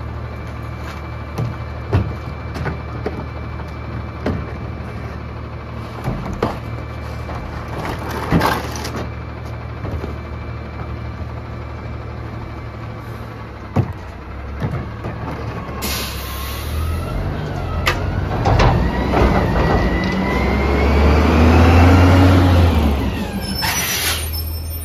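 Autocar Xpeditor front-load garbage truck idling while trash cans are emptied into its carry can, with several sharp bangs of cans against the metal bin. About two-thirds in, an air brake releases with a hiss and the engine revs with a rising whine as the truck pulls away, and another air hiss comes near the end.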